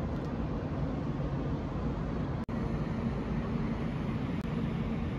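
Steady low rumble of city traffic from the streets below a high-rise, with a faint hum underneath; the sound cuts out for an instant about halfway.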